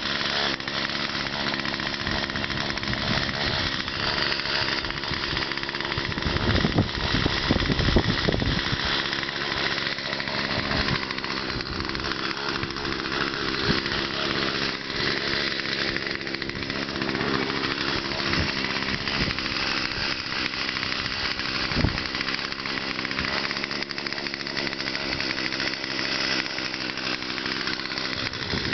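Small gas chainsaw with an 18-inch bar running steadily, briefly louder about a quarter of the way in.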